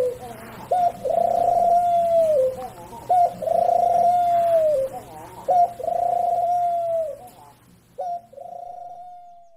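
White crested domestic pigeon cooing: four long coos, each a short note followed by a long held tone that drops at its end, the last one fainter.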